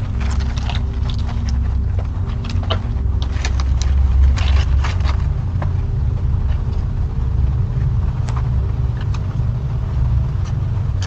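Steady low rumble of a running vehicle, heard through a doorbell camera's microphone, with scattered light clicks and knocks.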